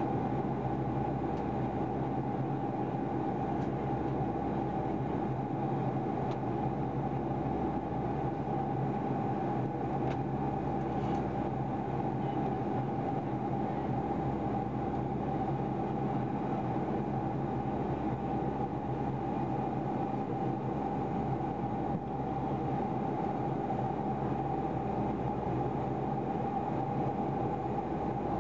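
Steady cabin noise of a jet airliner in cruise flight: the constant rush of engines and airflow, with a steady hum and a whine on top.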